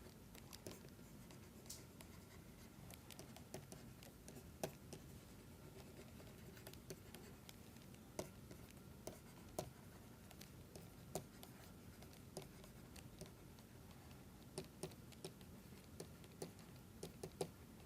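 Faint, irregular clicks and taps of a pen writing on a surface, over near-silent room tone.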